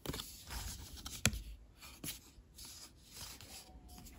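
Paper and tissue paper rustling and rubbing under hands as a homemade black paper cutout is handled, with one sharp tap a little over a second in.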